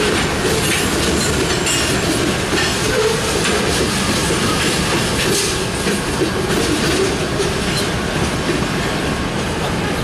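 Covered hopper cars of a sand train rolling past on the rails: a steady rumble of wheels on track with scattered clicks and clanks from the wheels and couplers.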